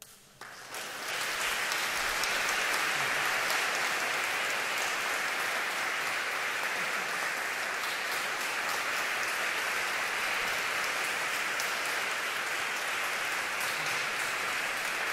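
Audience applauding, the clapping starting about half a second in and quickly rising to a steady level.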